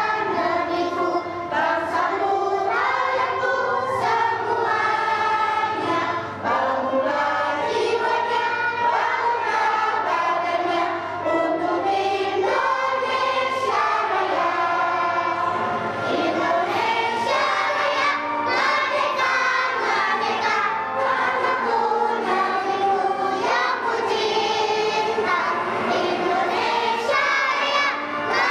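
A group of kindergarten children singing a song together in chorus, joined by a woman singing into a microphone.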